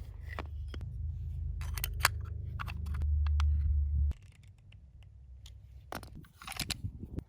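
Small clicks and handling sounds as grip screws with O-rings are fitted and tightened on a pistol's G10 grip panels. Under them runs a low hum that gets louder and then cuts off suddenly about four seconds in, and a cluster of clicks comes near the end.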